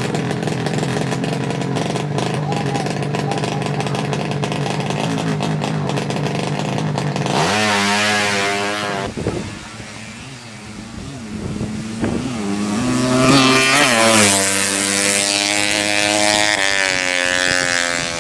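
Drag-race motorcycle engines running at high revs. The pitch climbs sharply a few seconds in and again from about halfway, as the bikes rev and accelerate, with a brief drop in level between.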